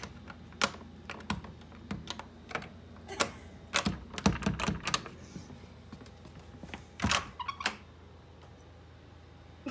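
Door lever handle and latch clicking and rattling in irregular sharp clicks as a hand works the handle of a wooden door. The clicks come thickest about four seconds in.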